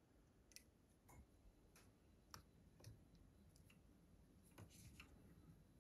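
Near silence, with a few faint, scattered clicks of small insulated crimp spade connectors and wires being handled.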